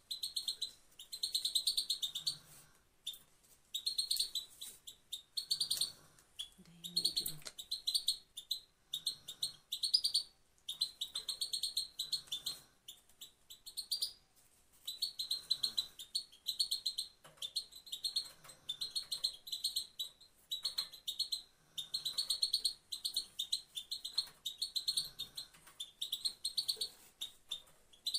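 A female goldfinch repeating the same single phrase again and again. Each phrase is a fast run of high twittering notes lasting about a second, followed by a short pause.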